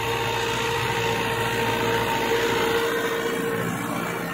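New Holland tractor's diesel engine running steadily under load as it pulls a laser land leveller through dry soil.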